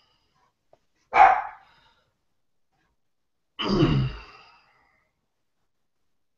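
A dog barks twice: a short, sharp bark about a second in and a longer, deeper one in the middle.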